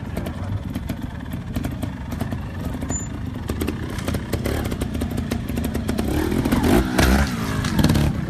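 Single-cylinder trials motorcycle engine running at low revs with a fast, ticking putter, growing louder over the last couple of seconds as short rises in revs come in.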